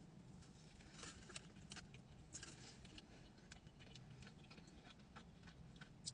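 Faint, scattered small clicks and crackles of chewing a turkey-and-stuffing sub sandwich close to the microphone.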